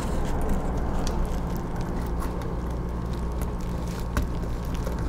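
A small screwdriver and wire working a screw terminal on a circuit board: a few faint clicks and taps over a steady low hum.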